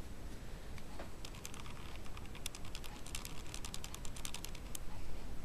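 Blush brush bristles sweeping quickly over the cheek, giving a fast run of light scratchy ticks from about a second in until near the end.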